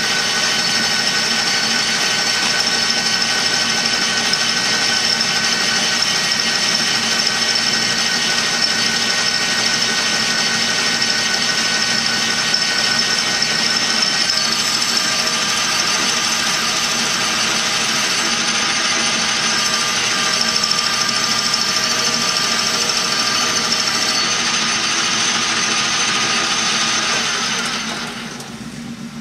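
Metal lathe running under power, turning a large metal tube on a light finishing cut: a steady machine whine with a cutting hiss. The pitch shifts slightly about halfway through, and the sound dies away near the end as the lathe winds down.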